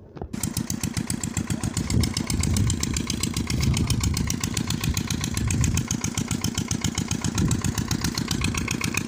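An engine running with a fast, even firing beat, which comes in abruptly just after the start and keeps a steady pace.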